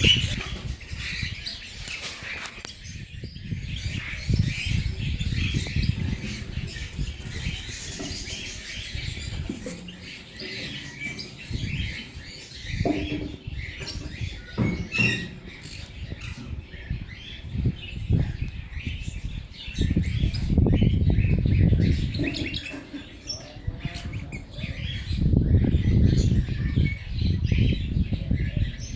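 A flock of budgerigars chattering and chirping with short squawks and wing flutters. Loud low rumbling comes and goes beneath them, heaviest about two-thirds of the way in and again near the end.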